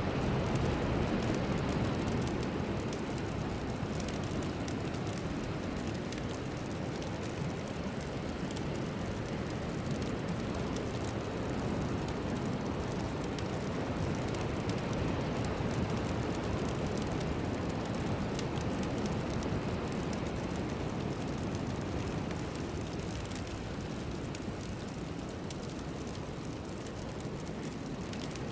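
Steady rushing noise with no clear tones, heaviest in the low range and slowly swelling and easing, much like heavy rain: the ambient sound bed of a meditation track.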